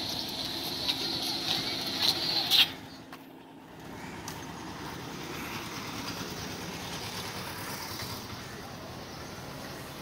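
Road traffic ambience with a car driving past. Light regular clicks, about two a second, run over the first few seconds, then the sound drops briefly and settles into a steady hum.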